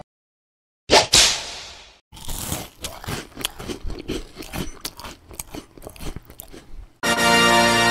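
A person bites into a beef cocktail smoked sausage with a sharp crunch about a second in, then chews it close to the microphone for about five seconds with irregular crackling mouth sounds. The chewing cuts off suddenly near the end as music comes in.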